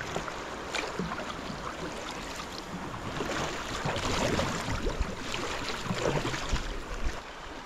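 River water rushing and splashing around a whitewater kayak, with paddle blades dipping and pulling through the water.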